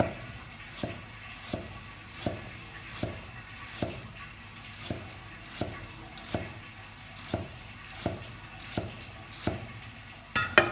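Chinese cleaver slicing fresh ginger on a thick wooden chopping block: slow, even knife strokes, about one every three-quarters of a second, each a knock of the blade into the wood, with a louder clatter near the end.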